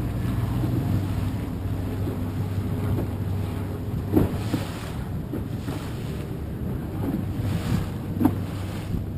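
A motor tender's engine running at a steady low hum while chop slaps against the hull, with wind on the microphone; the sharpest slaps come about four seconds in and near the end.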